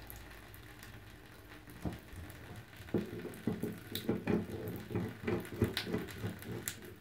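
Small metallic clicks and knocks from the hot tap's head on a chrome bath mixer tap as it is worked by hand to undo it, coming in a quick irregular run from about two seconds in.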